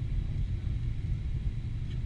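Boeing 777-300ER cabin noise heard from a window seat over the wing during the descent: a steady low rumble of the GE90 engines and airflow.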